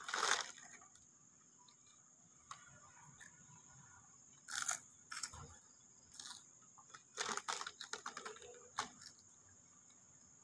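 Faint, scattered rustles and soft crunches of a body and clothing shifting on a foam yoga mat, over a steady high-pitched insect trill.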